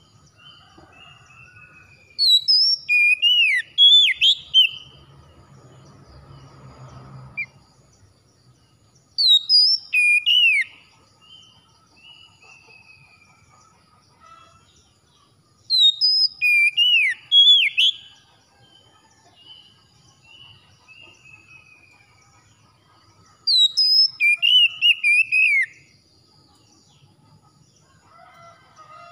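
Oriental magpie-robin singing: four loud bursts of quick, varied whistled phrases, each a couple of seconds long and several seconds apart, with fainter long falling whistles between them.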